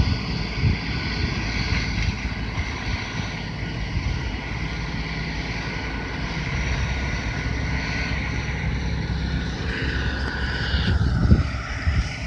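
2017 LS XR4155H 55 hp tractor's diesel engine running steadily while plowing snow, with a shift in its sound about eleven seconds in.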